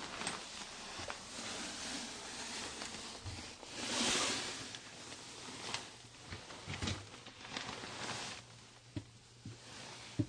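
Rustling and handling noise from someone moving about and groping around inside a cramped attic space, with a louder rustle about four seconds in and a few soft knocks against the boards.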